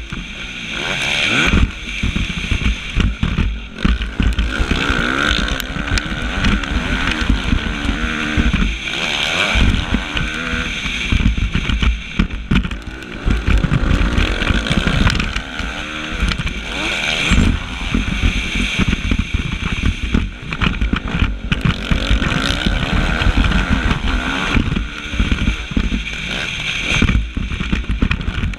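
Suzuki motocross bike's engine heard up close while racing, its revs rising and falling again and again as the throttle opens and shuts over the track.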